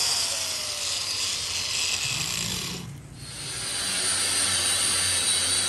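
Hand-held power tool working on the tractor tire, running with a steady rasping hiss. It dies away about three seconds in, then builds back up with a thin steady whine.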